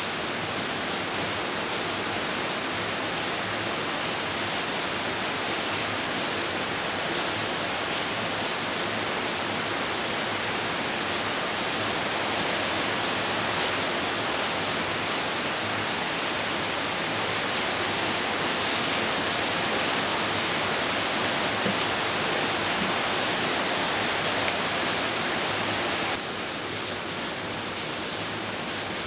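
Steady, even rushing hiss with no distinct events; its lower part drops away about 26 seconds in.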